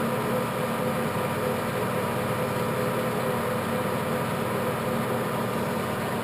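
Clausing Colchester 16-inch geared-head lathe running at a steady speed, its headstock gears and motor making an even mechanical hum with the carriage power feed engaged.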